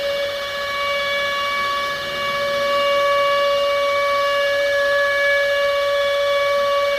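Civil defence siren sounding a steady, held tone with strong overtones: the attack warning of a nuclear alert.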